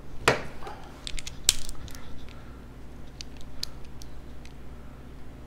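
Metal clinks and clicks of hand tools and bolts being handled on a Harley-Davidson Sportster's rocker box cover. A heavier clunk comes just after the start and a sharp clink about a second and a half in, followed by scattered lighter ticks.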